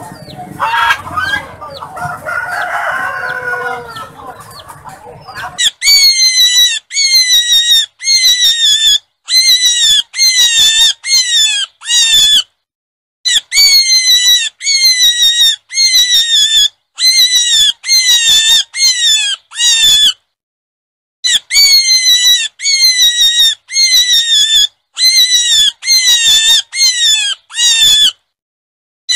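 High-pitched animal squeals, each falling in pitch, repeated about every three-quarters of a second in runs broken by short silences. For the first five or so seconds, before the squeals start, there is a denser jumble of calls.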